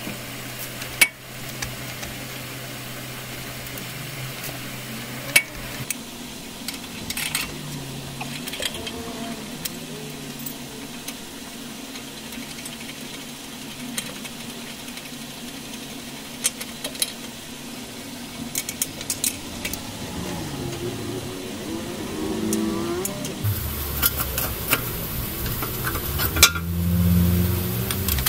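Scattered metallic clinks and knocks of hand tools and bolts against a Toyota Prado's underbody while its gearbox mount is being worked on. A steady low hum stops about five seconds in, and a louder low rumble with a hiss sets in near the end.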